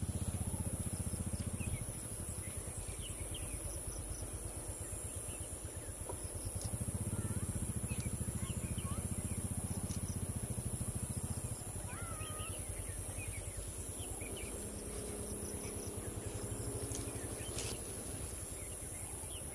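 A low, pulsing rumble of an idling vehicle engine, loudest at the start and again in the middle. Under it run a steady high insect drone and scattered short bird chirps.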